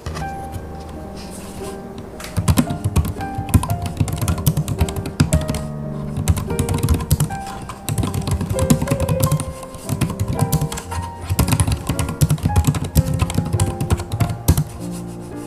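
Typing on a Hansung BK300 Bluetooth keyboard with low-profile pantograph (scissor-switch) keys: quiet, soft key clicks in quick runs, starting about two seconds in. Background music plays over the typing.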